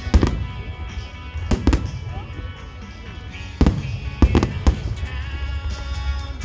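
Aerial fireworks shells bursting in a series of sharp bangs, about seven in all: one right at the start, two at about a second and a half, and a quick cluster a little past halfway. Underneath runs music played through large outdoor loudspeakers.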